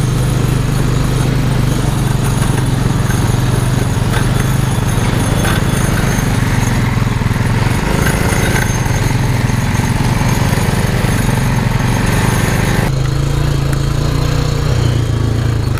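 Small engine of an off-road go-kart buggy running steadily on a trail ride, with a rough, loud low drone. The sound changes near the end, the engine note shifting and the hiss above it dropping away.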